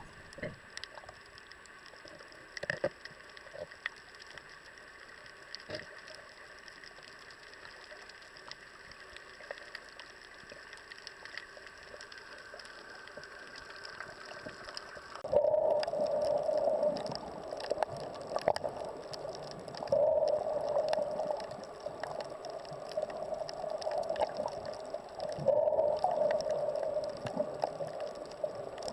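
Underwater sound picked up by a snorkeller's camera: faint scattered clicks at first, then from about halfway a louder muffled rushing that comes in surges of several seconds.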